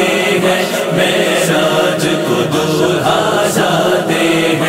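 Devotional naat singing: layered voices chanting in chorus over a steady beat that falls about every three-quarters of a second.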